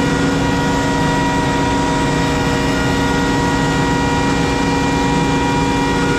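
Heavy engine running steadily at an even speed, a constant low rumble with a steady hum and whine over it.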